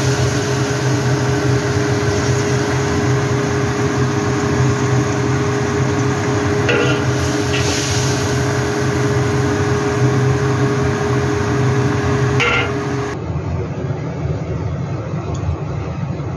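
Metal spatula scraping against a wok a few times as a chayote, tempeh and shrimp stir-fry is turned and scooped out. Under it runs a steady kitchen hum and hiss. About 13 seconds in the hiss cuts off, leaving a duller hum.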